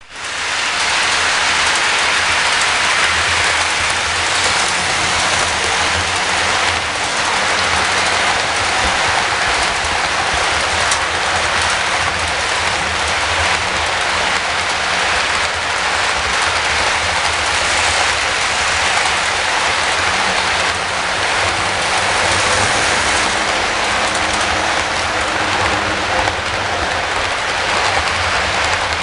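HO scale model freight train rolling past: the steady rattling hiss of many small wheels running on the rails, with a low hum underneath.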